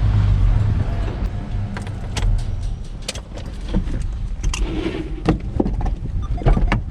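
Truck's low engine and road rumble, heard from inside, easing after about two seconds. It is followed by a run of sharp clicks and knocks.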